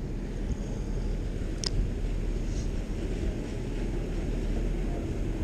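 Steady low outdoor rumble, with one short sharp click about a second and a half in.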